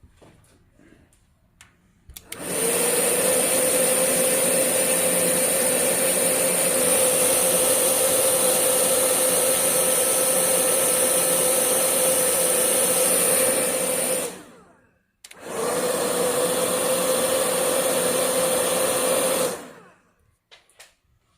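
Hair dryer running steadily with a whine, blowing the wet paint of a Chinese painting dry. It switches on about two seconds in, cuts off briefly around fourteen seconds, then runs again for about four seconds before switching off.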